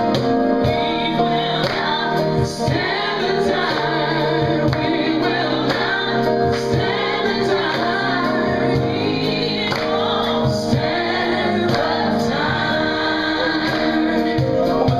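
Live music: several singers, female and male, singing together into microphones over steady, regularly struck percussion.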